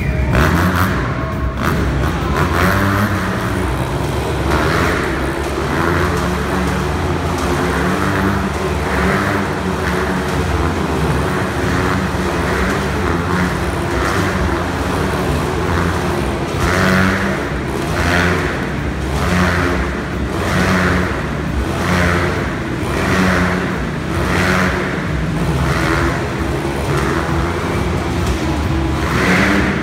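Motorcycles running and revving inside a steel-mesh globe of death as they circle. Their engine note shifts in steps, and from about halfway it swells and fades about once a second, once for each lap.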